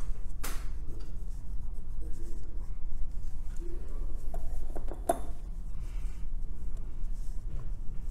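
Soldering iron and desoldering wick dragged across a phone logic board's solder pads, a faint scratchy rubbing. Two sharp clicks come about half a second and about five seconds in, over a steady low hum.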